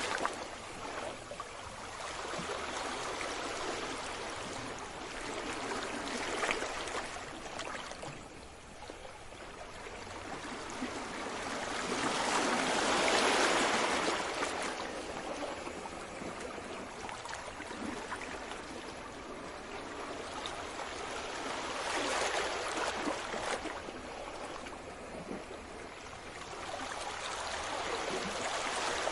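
Sea waves washing in and falling back, a hiss that swells and fades in slow surges several seconds apart, the biggest about halfway through.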